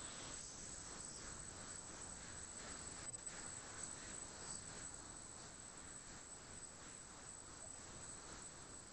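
Faint steady hiss of open-microphone noise on a web video call.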